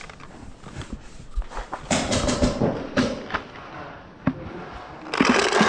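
Paintball markers firing: scattered single pops, then quick strings of shots about two seconds in and again near the end.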